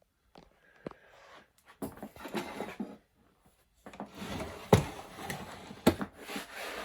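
Handling noise: rubbing and scraping in two stretches, with two sharp knocks in the second.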